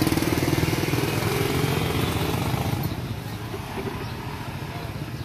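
A motorbike engine passing close by, loudest at the start and fading over the first few seconds as it moves away.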